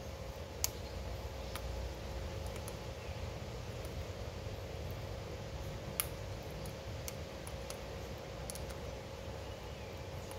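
Ringneck parrot's beak clicking as it bites and chews guava: a few sharp, scattered clicks, the loudest about six seconds in, over a steady low hum.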